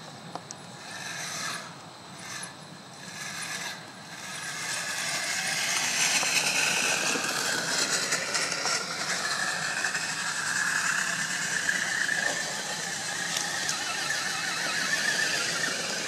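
Electric motor and gearbox of a scale RC crawler truck whining as it drives toward the microphone, growing louder from about four seconds in.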